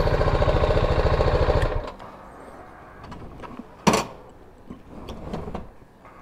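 Motorcycle engine idling with a steady, rapid pulse that stops suddenly about two seconds in, leaving a much quieter background. A single sharp clack about four seconds in.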